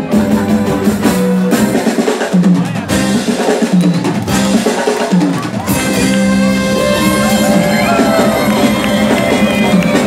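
Live band playing with drum kit, electric guitars and keyboard. The drums stand out in the first half, with the bass dropping out in stretches. From about six seconds in, the full band comes back with a held melody line over it.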